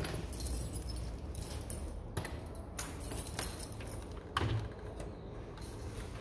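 Short clicks and clatters of plastic connectors and power-supply cables being handled and pushed onto a bare desktop motherboard on a wooden bench. There are a few separate knocks, the sharpest about four seconds in.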